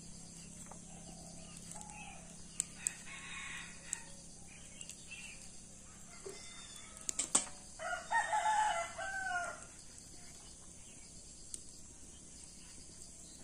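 A rooster crows once, about eight seconds in: one long call of several rising and falling parts, the loudest sound here. Chickens cluck faintly before it, and a few sharp clicks sound through the first half.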